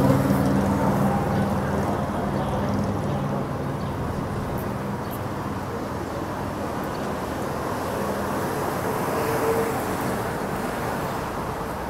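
City street traffic noise. The engine of a vehicle passing close by fades away over the first few seconds, leaving a steady hum of traffic.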